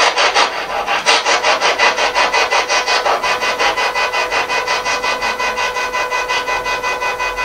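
Spirit box (a scanning radio) sweeping through stations: static chopped into short, even bursts about seven times a second, over a faint steady tone.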